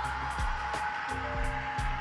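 Background music with a steady drum beat and held bass notes.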